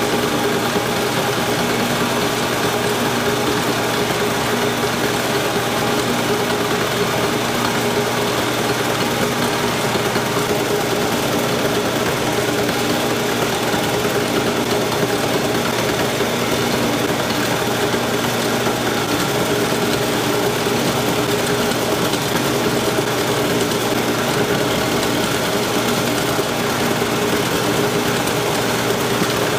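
Old horizontal milling machine running without cutting, its motor and freshly reassembled spindle giving a steady hum with a few constant tones. It is a test run to see whether the spindle bearings are set right.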